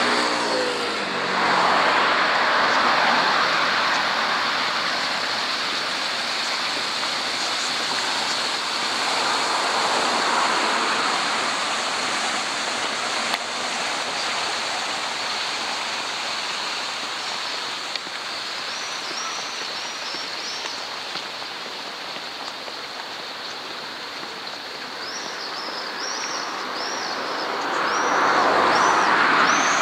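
City road traffic: a steady rush of tyres and engines that swells as cars pass near the start and again near the end, with a falling engine pitch in the first second. Small birds chirp repeatedly in the second half.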